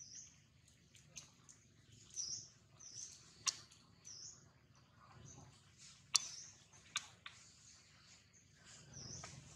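Faint, high chirps of small birds, repeating every second or so, with a few sharp clicks in between.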